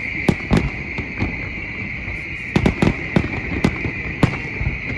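Fireworks display: aerial shells bursting with about ten sharp bangs at irregular spacing, several in quick succession around the middle, over a steady high hiss.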